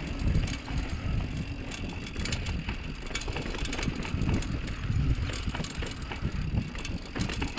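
Mountain bike riding down a loose, dusty dirt trail: tyres rolling over dirt and rocks with many small clicks and rattles from the bike, over a steady low wind rumble on the microphone.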